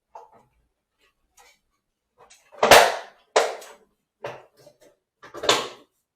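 A series of sharp knocks and clatters of hard objects being handled, about five in all, starting a couple of seconds in.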